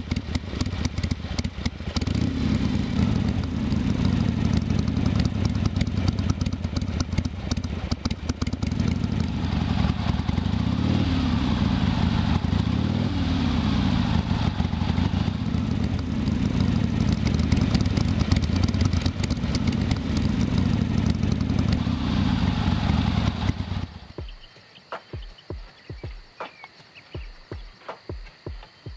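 1972 Harley-Davidson Sportster XLCH's Ironhead V-twin running just after a kick start, held around 1000 rpm to warm up, with the revs rising and falling on the throttle in the middle part. The engine stops about 24 seconds in, leaving a few soft clicks.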